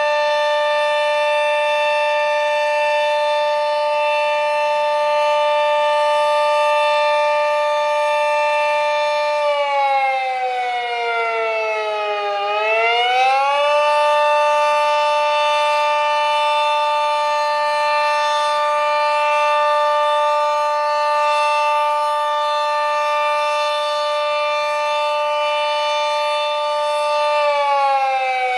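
Sentry 40V2T dual-tone outdoor tornado warning siren sounding during a test: a loud, steady two-tone chord that sags in pitch about ten seconds in, winds back up a second later, holds again, and starts winding down near the end.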